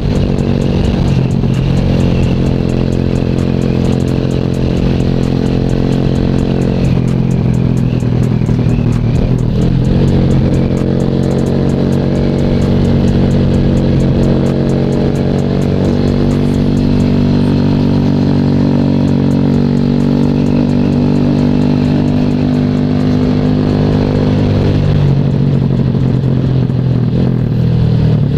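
Sigma 250 sport motorcycle's engine running on the move, heard from the rider's seat. Its note rises and falls several times with throttle and speed.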